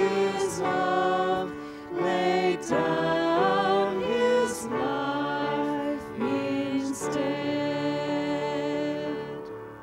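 A hymn sung with instrumental accompaniment. The sung line is held over sustained lower notes and ends near the end as the music fades.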